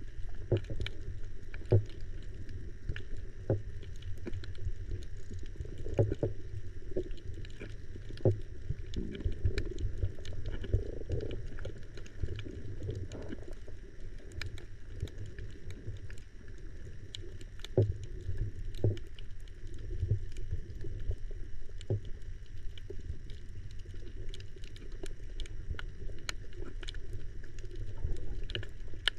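Underwater sound picked up through a camera's waterproof housing: a steady, muffled low rumble of moving water with many scattered sharp clicks.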